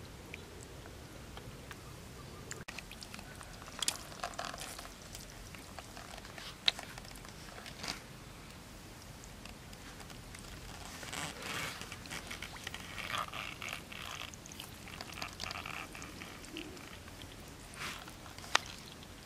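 Hands working through a shallow muddy puddle, with small wet splashes and a few sharp clicks as snails are picked up and dropped into a plastic bucket.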